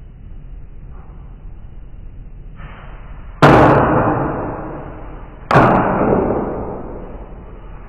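A carrom striker flicked hard across a carrom board: two sharp clacks about two seconds apart, each trailing off over a couple of seconds as the striker and coins slide and rebound. A third clack begins at the very end.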